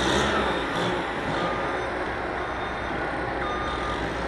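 Construction machine's reversing alarm beeping in a steady, repeated pattern from about a second in, over the low rumble of diesel machinery running.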